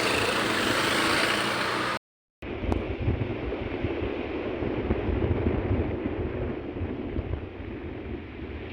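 Vehicle running on the road, with wind noise on the microphone. About two seconds in the sound cuts out briefly, then a duller, deeper rumble carries on and slowly fades.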